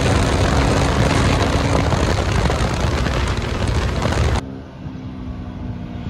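Royal Enfield Classic 350 Reborn's 349 cc single-cylinder engine running hard at speed in a drag run, under heavy wind rush on the microphone. About four seconds in, the wind noise drops away sharply, leaving a quieter engine hum.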